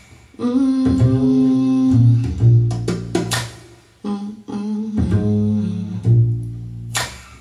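Instrumental intro of a song: plucked guitar notes over a low bass line, with a short bright hit about three seconds in and again near the end.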